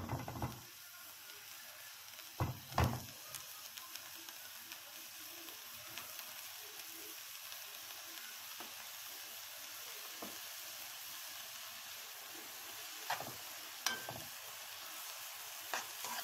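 Chopped onions sizzling in ghee in a nonstick frying pan, a steady hiss, with a few knocks of the stirring spoon against the pan, twice about two to three seconds in and again near the end.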